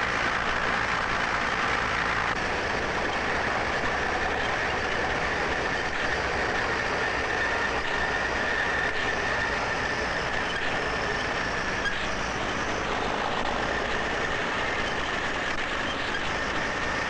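Heavy machinery at a refuse dump, a crawler bulldozer pushing garbage and a garbage truck tipping its load, running steadily: a dense mechanical noise with a steady high whine through it.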